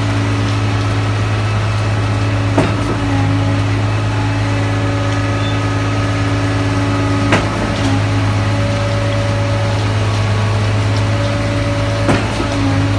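An engine running steadily at constant speed, a low even hum, with three sharp clicks about five seconds apart.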